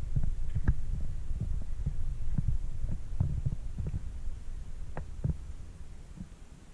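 Low rumble with irregular soft thumps on the camera's microphone as it is carried along, fading away near the end.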